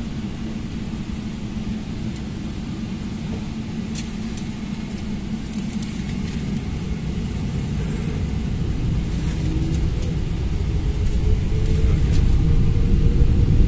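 Airliner cabin noise: a steady low rumble with a few faint clicks. It grows louder in the last few seconds, with a faint whine rising slowly.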